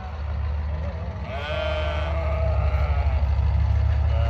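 Diesel engine running with a steady low drone, and an animal bleating over it once, about a second and a half in.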